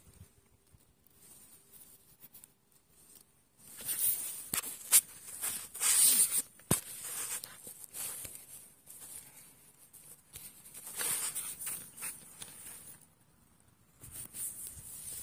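Grass and reed blades rustling close to the microphone in irregular bursts, with a few sharp clicks around the middle.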